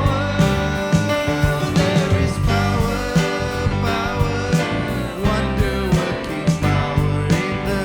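Church worship band music with a steady beat and a strong bass line, guitar among the instruments.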